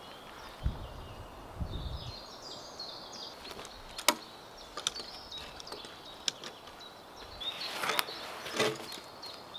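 A log being worked off a stack of timbers with a hand tool: several sharp wooden knocks, the loudest about four seconds in, and a scraping rustle as the log is dragged, near the end. Birds chirp in the background.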